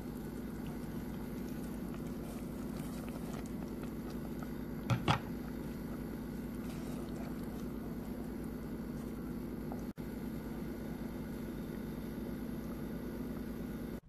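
Steady low mechanical hum, with a short double knock about five seconds in.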